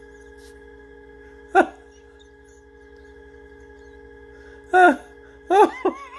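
A man's helpless fit of laughter: short, high-pitched bursts that fall in pitch, one about a second and a half in and three close together near the end, with held-breath pauses between them.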